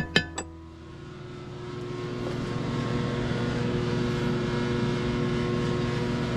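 Steady drone of a shop's overhead Hot Dawg heater and a diesel heater running together, with a hum of several steady tones that grows over the first couple of seconds and then holds. Three quick clicks come right at the start.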